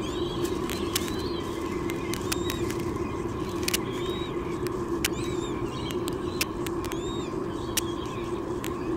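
Bird chirping: short, high, arched calls repeated about once a second over a steady background hum, with scattered sharp clicks.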